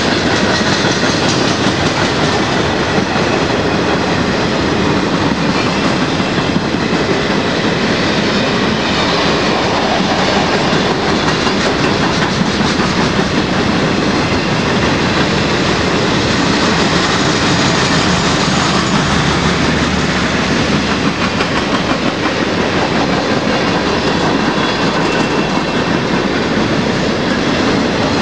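Freight cars of a long mixed freight train (covered hoppers, boxcars, gondolas) rolling past at speed: a loud, steady noise of steel wheels on the rails, laced with quick wheel clicks.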